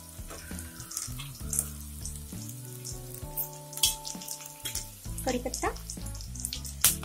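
Hot oil sizzling with scattered crackles in a kadhai as raw peanuts are dropped into it with chopped onion and green chillies.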